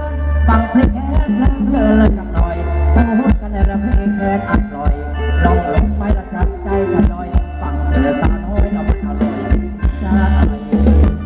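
Live band playing upbeat Thai ramwong dance music: a heavy electric bass line and a steady drum beat under a sustained melody.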